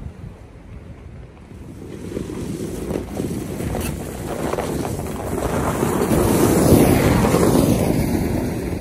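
A truck driving by on a snowy road, its engine and tyres growing louder as it approaches, loudest about six to seven seconds in as it passes close by, then fading, with a falling whine near the end.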